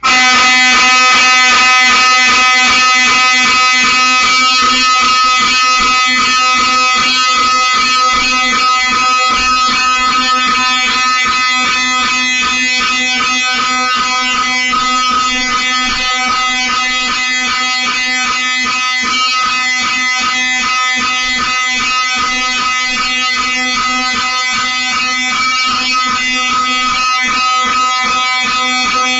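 Wheelock 7001-24 fire alarm horn sounding continuously without pauses: a very loud, harsh buzzing tone that starts suddenly.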